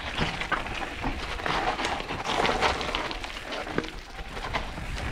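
Mountain bike rolling down a dirt trail: tyres crunching over loose ground and rocks, with a steady run of small clicks and rattles.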